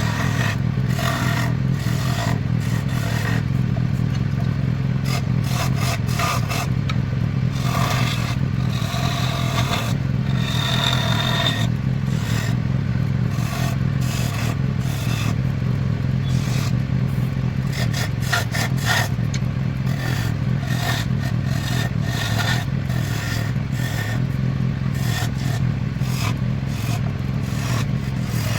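Wood lathe motor running steadily while a hand-held turning tool scrapes the spinning wooden vase in repeated short, uneven strokes. A brief high squeal from the cut comes about ten seconds in.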